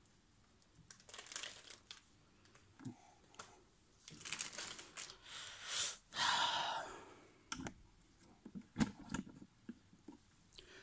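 Rustling and crinkling of a new laptop's protective packing sheets and plastic bag being lifted and pulled off, loudest about six seconds in, followed by a few light clicks and knocks.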